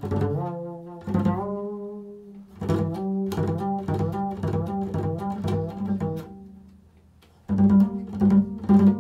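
Double bass played pizzicato in an improvised solo: a few plucked notes ringing out, then a quicker run of notes, a brief fade about seven seconds in, and harder plucks near the end.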